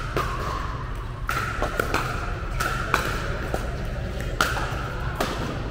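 Pickleball rally: the hollow plastic ball popping sharply off paddles in a quick string of hits, several about a fifth of a second apart in a fast exchange, each hit ringing briefly.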